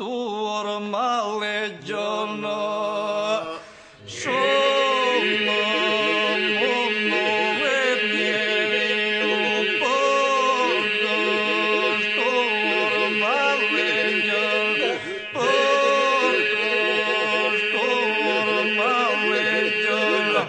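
Albanian ilahi, a Muslim devotional hymn, sung in chant style: a lead voice winds and ornaments its melody over a steady held drone. There is a brief drop about four seconds in, then a fuller, continuous stretch.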